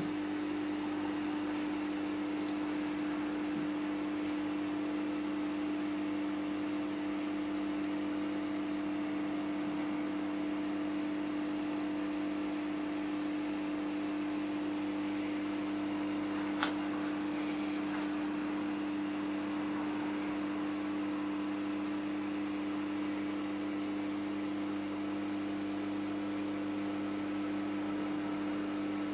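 Steady hum and hiss of a reef aquarium's running equipment, a low drone with an even hiss over it. A single sharp click sounds once a little past halfway.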